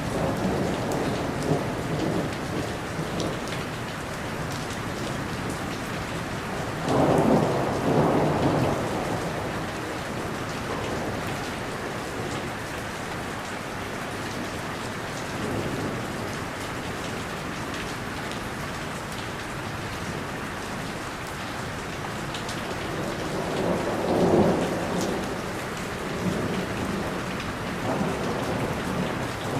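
Thunderstorm: steady rain falling throughout, with rolls of thunder swelling up about seven seconds in and again about twenty-four seconds in.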